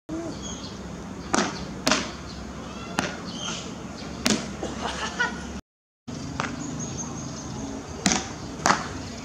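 Beach tennis paddle striking the ball again and again, a string of sharp hits, about seven in all, with a short dropout about halfway through.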